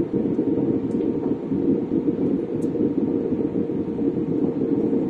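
Airliner cabin noise on approach: a steady roar of engines and rushing air heard inside the passenger cabin, with a faint steady humming tone.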